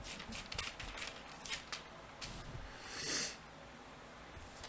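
Faint rustling and small clicks of thin Bible pages being leafed through, with one brief louder swish of a page about three seconds in.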